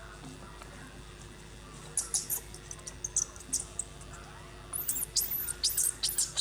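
A baby monkey squealing: scattered short, high-pitched squeaks from about two seconds in, then, from about two-thirds of the way through, rapid shrill squeals that each sweep steeply down in pitch, about three a second.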